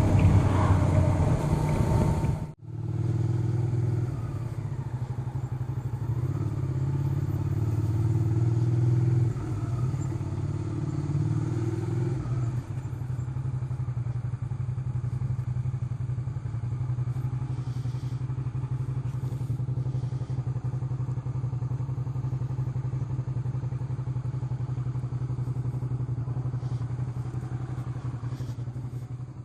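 Motorcycle engine heard over loud wind noise for the first couple of seconds, then, after a sudden break, running steadily at a low, even pitch with much less wind.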